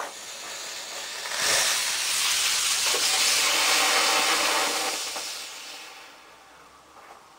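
Small rocket motor on a toy car firing: a quieter hiss for the first second or so, then a loud, steady hiss for about three and a half seconds that dies away over the last two seconds as the motor burns out.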